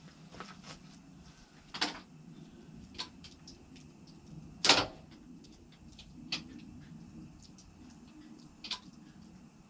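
Five sharp clicks or knocks at uneven intervals, the loudest about halfway through, over a faint low hum.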